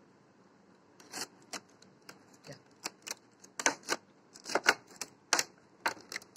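Clear plastic packaging crackling and crinkling as it is handled, a run of irregular sharp crackles beginning about a second in.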